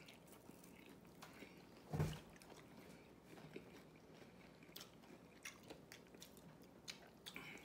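Faint biting and chewing of fried chicken wings in spicy sauce: scattered small mouth clicks, with one louder thump about two seconds in.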